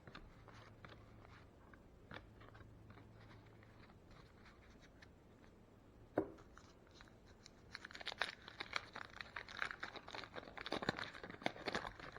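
Waxed-paper wrapper of a baseball card wax pack being handled: a few light clicks and one sharper snap, then from about eight seconds in a rapid crinkling and tearing of the wax paper.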